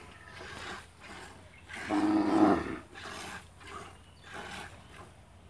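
A cow lows once, about two seconds in: a single low, drawn-out moo. Underneath it, streams of milk squirt rhythmically from hand milking, about two a second.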